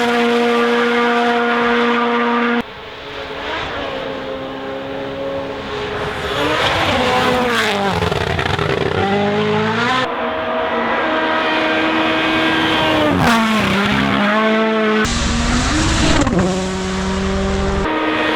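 Rally1 rally cars' turbocharged 1.6-litre four-cylinder engines driven flat out, revving hard with pitch that climbs, drops on lifts and braking, and steps through quick gear changes. The sound jumps abruptly several times from one car and stage to another.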